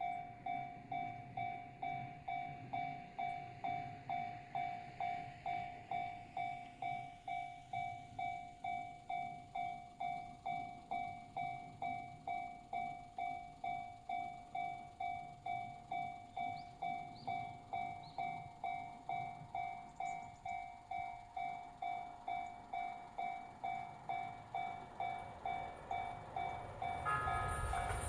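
Japanese railway level-crossing alarm ringing steadily, one bell-like tone struck about twice a second. Near the end the noise of an approaching train rises under it.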